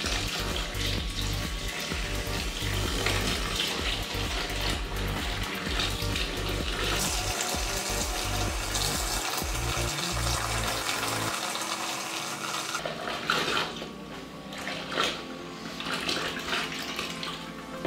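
Milk pouring in a steady stream from a plastic gallon jug into a plastic tub, over background music.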